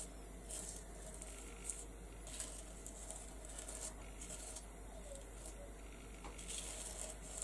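Faint, repeated scraping strokes of a palette knife spreading thick paste across a plastic stencil, a soft stroke every second or so.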